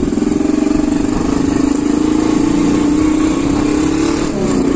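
Motorbike engine running steadily under way, its note rising a little and then easing off about four seconds in.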